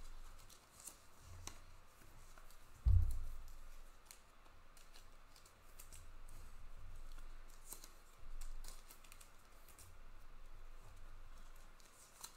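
Trading cards being handled and slid across a table: scattered light clicks and rustling of card stock, with one dull thump about three seconds in.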